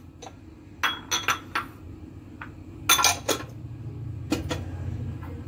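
A silicone spatula with a wooden handle knocking and scraping against a glass mixing bowl, giving sharp glassy clinks in small clusters.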